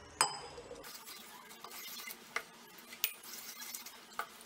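Steel spoon stirring thick wet wheat rava batter in a stainless steel bowl, scraping the bowl with several sharp clinks of metal on metal, the loudest just after the start.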